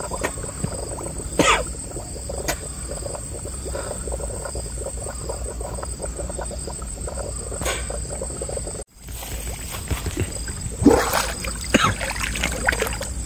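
Steady high-pitched insect trill, like crickets, over outdoor background noise with a few scattered knocks. After a sudden break about nine seconds in, there is noisier splashing of water and handling, with sharp knocks about two seconds later.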